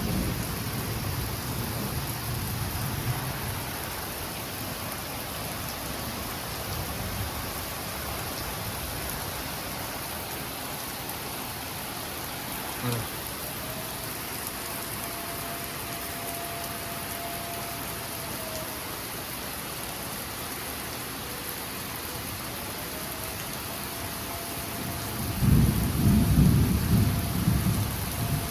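Steady heavy rain with thunder: a rumble that dies away over the first few seconds, then a loud rolling thunderclap that starts near the end.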